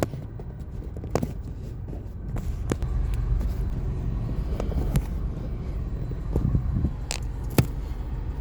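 Low, steady rumble of a car heard from inside the cabin, with a handful of short sharp clicks and knocks scattered through it.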